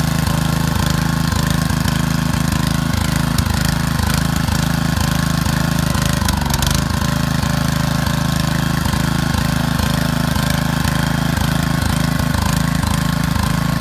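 Walk-behind two-wheel tractor's engine running steadily under load as it pulls a reversible plough through turf. It dips briefly in pitch about halfway through.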